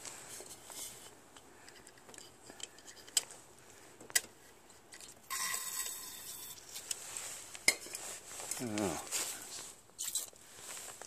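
Aerosol carburetor cleaner sprayed through its straw into a lawn mower's carburetor intake: one steady hiss of about a second and a half, about halfway through, with a few sharp clicks before and after it.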